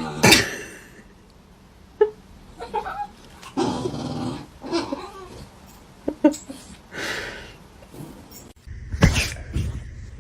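A dog's short vocal sounds in several separate bursts, with a sharp knock about two seconds in.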